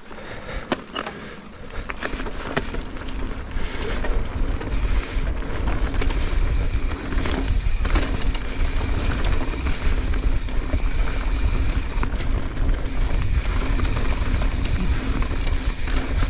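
Mountain bike riding fast down a dirt flow trail: wind rumbling on the microphone, with tyres rolling over dirt and short clicks and rattles from the bike. It grows louder over the first few seconds as speed builds.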